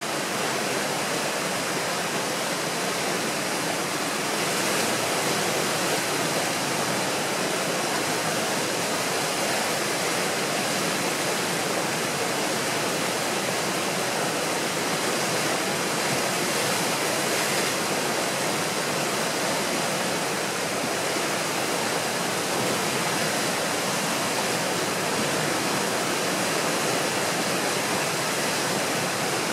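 Tidal rapids rushing steadily: whitewater breaking over the standing wave of Skookumchuck Narrows during a very large tidal exchange, an even roar with no letup.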